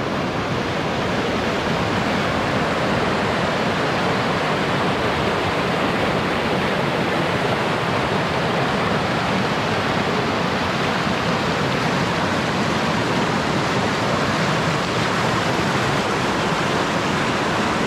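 Class 3 whitewater rapid on a river, water rushing and churning over rocks in a steady, loud, unbroken wash.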